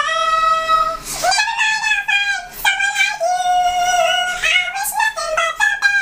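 A girl singing long, high held notes without clear words, stepping and sliding between pitches.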